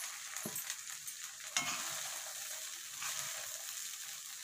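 Flattened rice (aval) being stirred in hot ghee in an iron kadai: a steady soft sizzle with the spatula scraping through the grains. The spatula knocks against the pan twice, about half a second and about a second and a half in.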